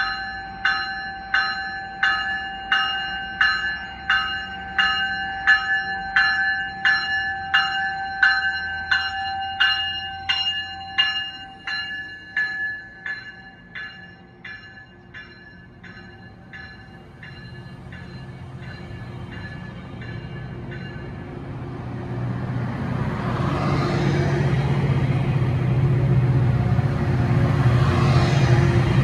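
Railroad crossing bell ringing rapidly, about one and a half strikes a second, fading out about halfway through. Then an approaching train's low rumble grows steadily louder.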